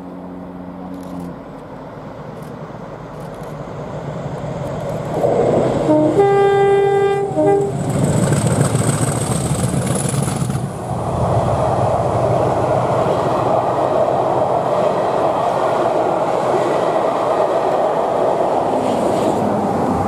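Two English Electric Class 50 diesel locomotives, each with a V16 engine, double-heading a passenger train, grow louder as they approach and pass. One sounds its horn about six seconds in: one long blast and a short second one. The coaches then run past with steady wheel-on-rail noise.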